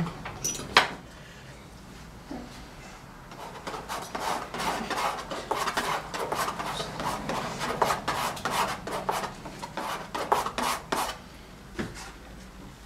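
Metal palette knife scraping and mixing oil paint on a palette, a quick run of short, gritty scrapes that goes on for several seconds and stops about eleven seconds in. Two sharp clicks come under a second in.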